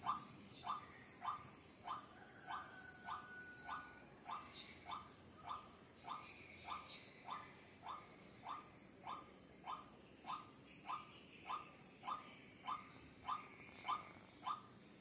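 White-breasted waterhen (ruak-ruak) calling: one short, slightly rising note repeated at an even pace, a little under two a second. The call is faint.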